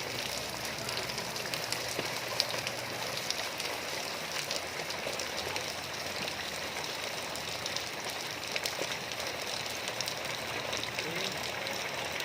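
Steady rain falling, with many separate drops striking close by as sharp little ticks over an even hiss.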